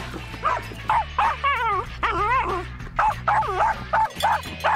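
West Highland white terrier barking in quick, repeated yips with a wavering whine in the middle, over background music.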